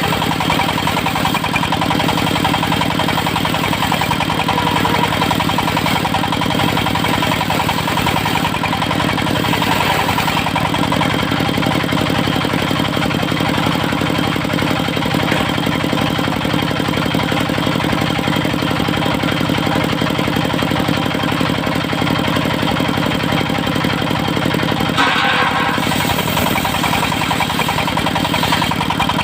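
Engine of a portable circular sawmill running steadily.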